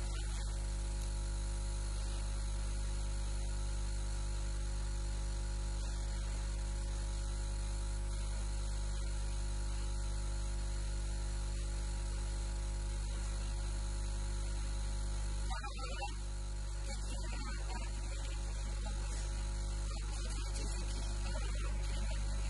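Steady electrical mains hum: a low buzz with many evenly spaced overtones, briefly disturbed about two-thirds of the way in.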